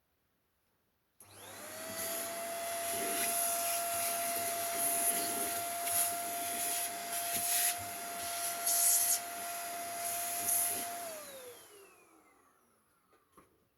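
Small electric vacuum-type cleaning motor switched on about a second in. Its whine rises quickly to a steady high tone over rushing air, with a few brief louder surges. Near the end it is switched off and winds down, the pitch falling as it fades.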